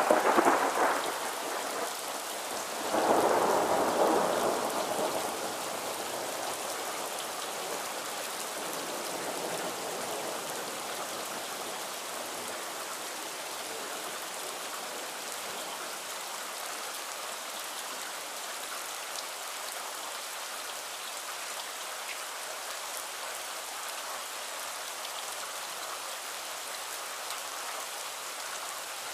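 Steady rain falling at night, with thunder rolling at the start and again about three seconds in. Each roll fades within a few seconds, leaving the even hiss of the rain.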